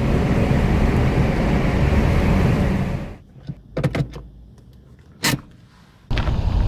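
Steady road noise inside a car's cabin while driving through a road tunnel. About three seconds in it cuts to a quiet parked car, with a few short clicks from the automatic gear shifter being moved into park and one sharper click a little later. A steady noise starts again near the end.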